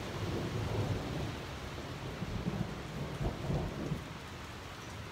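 Thunderstorm: steady rain with a low rumble of thunder that swells twice and eases off about four seconds in.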